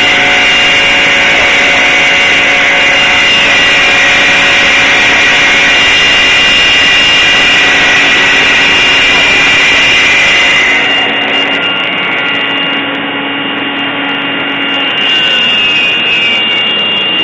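CNC machine running: a loud, steady machine whine with a sustained high tone, easing slightly about two thirds through and stopping at the end.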